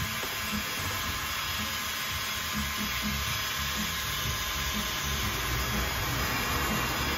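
Flexible-shaft rotary tool running steadily, its motor whirring at a constant speed.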